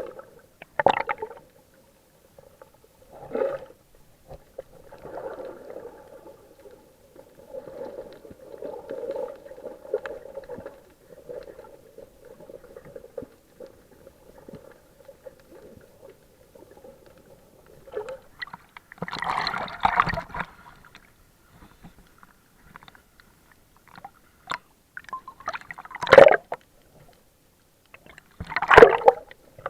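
Water gurgling and sloshing, heard muffled as if underwater, broken by several short louder splashing bursts, the longest about two-thirds through and the loudest two near the end.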